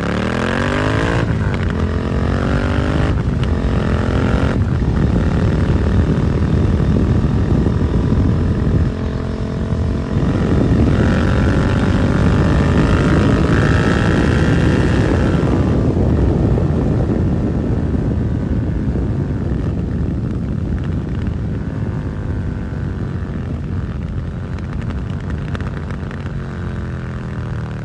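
Suzuki SV650 V-twin through a Dominator GP aftermarket exhaust, revving up through quick upshifts in the first few seconds, pulling up again from about ten seconds in, then easing off with the revs slowly falling, over wind and road noise.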